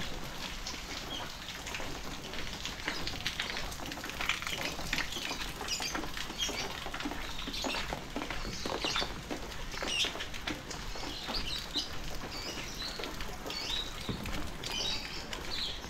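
Rain pattering and dripping onto hard surfaces, a dense run of small taps, with scattered high chirps of small birds, more of them in the second half.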